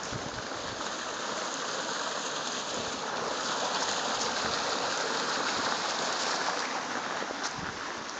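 Gushing water, a steady rush that grows louder about three seconds in and eases off near the end.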